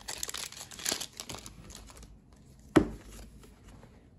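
Crinkling of a foil Pokémon booster-pack wrapper as the pack is opened and the cards are taken out, then a single sharp thump nearly three seconds in.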